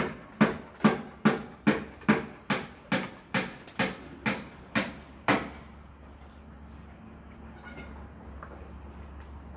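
Assam Hill Goat doe in labour grunting in a steady rhythm, about two or three short grunts a second, as she strains with the water bag showing; the grunts stop about halfway through, leaving a faint steady hum.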